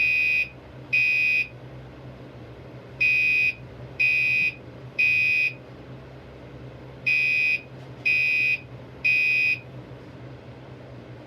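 Gentex Commander 3 fire alarm horn sounding in the temporal-three evacuation pattern: loud, high half-second blasts in groups of three about a second apart, with a longer pause between groups. It stops after the last group, a couple of seconds before the end.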